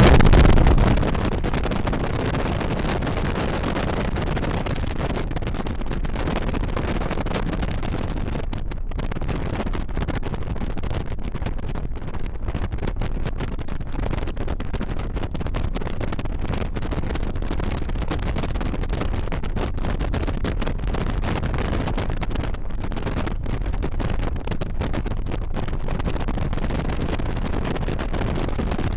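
Harley-Davidson V-twin motorcycle cruising at road speed, its engine running steadily under heavy wind rush on the microphone.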